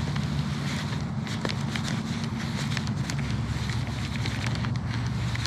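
Wind buffeting the microphone as a steady low rumble, with scattered light clicks and ticks throughout.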